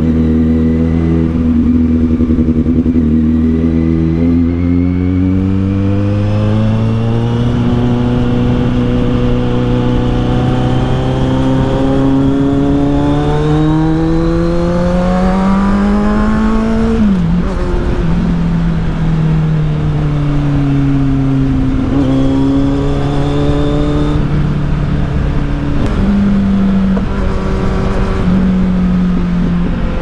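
Kawasaki Z800's inline four-cylinder engine through an Akrapovic exhaust, running under throttle while riding. Its note climbs slowly and steadily in pitch for about seventeen seconds, drops sharply, then settles lower and shifts a few more times near the end.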